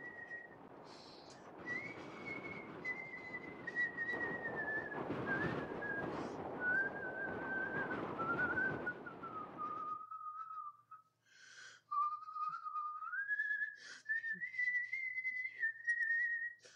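A slow whistled tune: one pure tone that wanders up and down, sinks lower through the middle and climbs again near the end. Under it a steady rushing noise cuts off abruptly about ten seconds in, leaving a few faint clicks.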